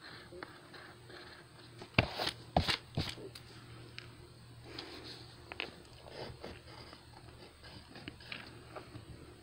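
Pencil scratching on lined notebook paper in short strokes, close to the microphone. About two seconds in comes a quick cluster of sharp knocks and handling noises, the loudest sounds here.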